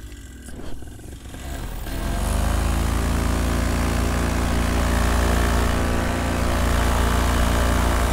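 Paramotor trike engine and propeller speeding up from a low idle about a second and a half in, then running at a steady pitch as the trike taxis across grass.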